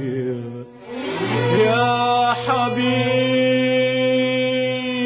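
Arabic song: a sung phrase ends, then after a short pause the voice slides up into one long held note on "yaa", over a steady low instrumental drone.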